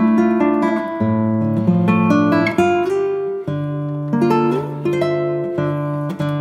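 Background music: acoustic guitar, a run of plucked notes over a held bass.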